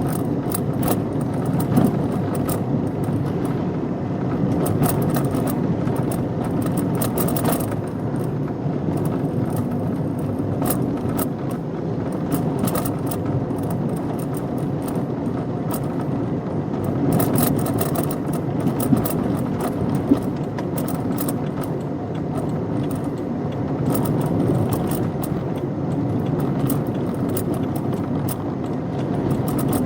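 Car being driven: steady engine and road noise, with scattered light rattles and clicks throughout.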